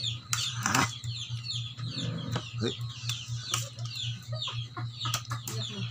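High-pitched, quickly falling peeping calls from birds, several a second, with a steady low hum underneath. Spoons and forks click against plates now and then.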